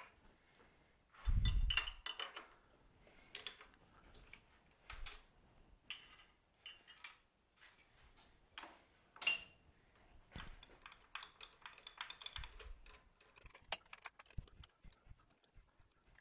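Scattered metallic clicks, clinks and taps of tools being handled at a stopped milling machine while its end mill is swapped. There is a dull low thump about a second in.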